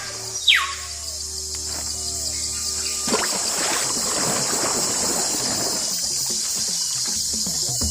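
Riverside jungle ambience: a steady high insect drone over water sounds. Two falling whistled calls come near the start, and a low steady hum runs for the first three seconds.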